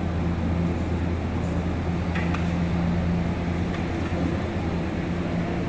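Steady low mechanical hum, even throughout, with a few faint clicks about two seconds in.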